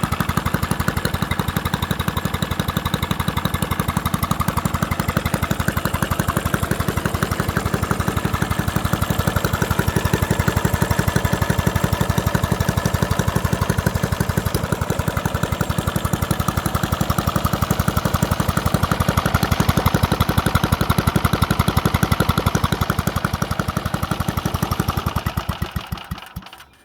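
Robin EY14 single-cylinder lawnmower engine running steadily, back in running order after years seized up. Near the end its firing slows and it dies away as it is shut off.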